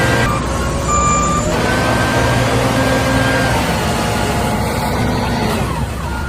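Steady heavy-vehicle engine noise, as of a truck or construction machine working, with short beeping tones over it.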